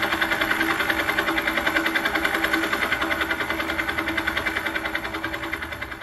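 Helicopter rotor beating steadily at about six beats a second over an engine hum, fading away toward the end.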